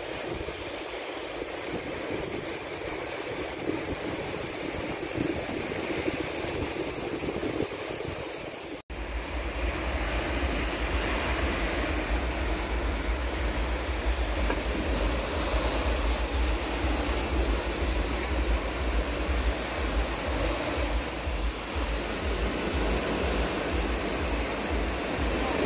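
Sea surf breaking on a beach, a steady rushing noise. About nine seconds in the sound drops out for an instant, then returns with a low rumble underneath.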